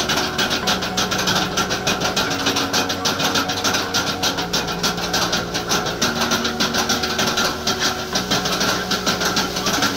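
Background music with held low notes changing every second or two over a fast, even ticking rhythm.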